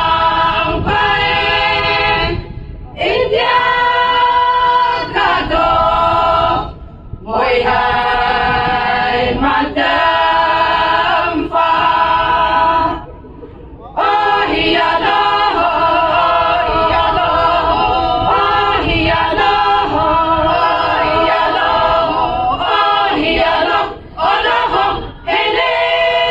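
Group of women singing together a cappella, in sung phrases broken by short pauses every few seconds.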